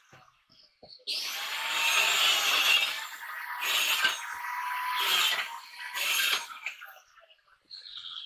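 Handheld power saw cutting through pallet wood: one long cut of about two and a half seconds starting about a second in, with a steady motor whine, then three short bursts of cutting.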